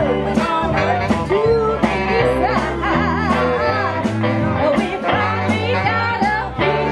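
A live band playing a song: women's voices singing over an electric bass line and a drum kit keeping a steady beat.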